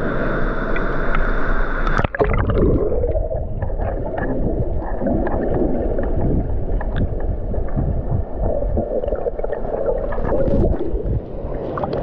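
Waterfall rushing into a river pool, then from about two seconds in a muffled underwater rumble with gurgling and bubbly clicks as the microphone goes under the water. Splashing near the end as it comes back up to the surface.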